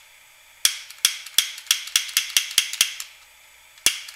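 Long-nosed butane utility lighter's piezo igniter clicked over and over, about four or five sharp clicks a second, then a pause before the clicking starts again near the end. It sparks but won't light because the lighter is nearly out of butane.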